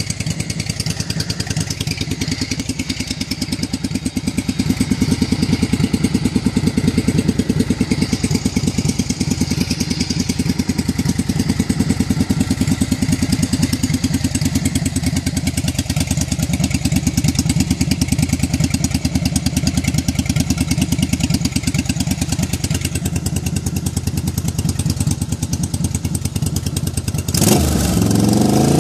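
1987 Yamaha Virago's air-cooled V-twin running steadily through MAC aftermarket exhaust pipes, a fast, even train of exhaust pulses. Near the end a sudden, louder noise breaks in over the engine.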